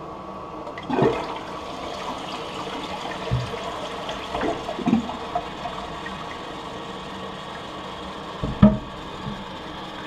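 Toilet being flushed: water rushes out of the tank and swirls through the bowl, starting about a second in and continuing steadily. A few knocks along the way and one sharp thump near the end stand out above the water.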